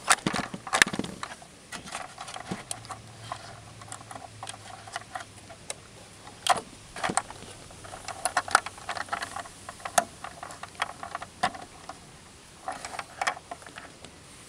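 Hands working a plastic garden-railway wagon's coupler against the model locomotive's coupler, which do not fit each other: irregular clicks and knocks of plastic being handled close up.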